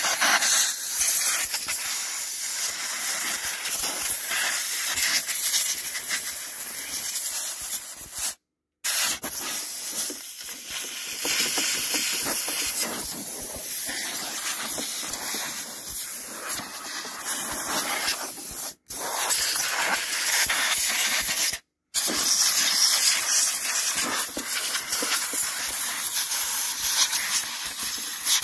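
Compressed-air blow gun hissing steadily as it blasts packed grass out of a Briggs & Stratton lawnmower engine, around the coil and cooling fins. It breaks off abruptly three times for an instant as the trigger is let go: about a third of the way in, then twice close together past the middle.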